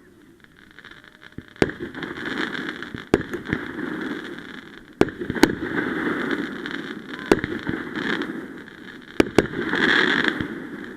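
Fireworks going off: about seven sharp bangs, a second or two apart, over a continuous crackling hiss that swells to its loudest near the end.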